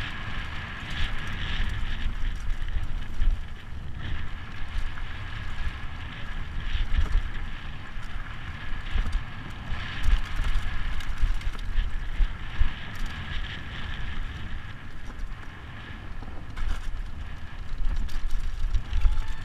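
Wind buffeting the camera microphone over the low, uneven rumble and rattle of a downhill mountain bike rolling fast on knobby tyres over a dry dirt trail.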